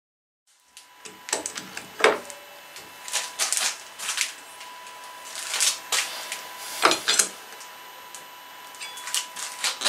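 Irregular metallic clicks and clanks of steel parts and a spanner being handled as a lathe chuck is fitted and tightened on a rotary table's nose. A faint steady hum runs underneath.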